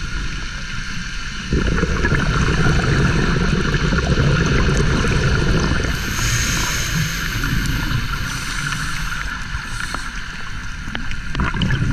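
Muffled underwater sound through a camera housing: a scuba diver's exhaled regulator bubbles gurgling and rumbling, rising about a second and a half in, easing around ten seconds, and coming again near the end, over a steady hiss.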